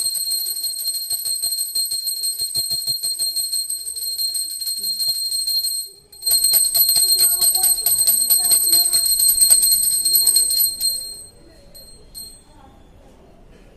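Puja hand bell (ghanti) rung rapidly and continuously for the aarti, with a brief break about six seconds in, then ringing again until it stops near the end.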